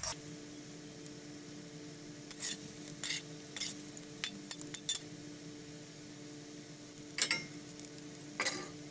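A metal spoon clinking and scraping against a pan as banana fritters fry in oil: a run of short clinks in the middle seconds and two louder scrapes near the end, over a faint sizzle and a steady hum.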